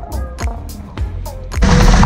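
Background music with a steady beat and a melody. About one and a half seconds in, loud rushing wind and water spray from a Hobie catamaran sailing fast cuts in over the music.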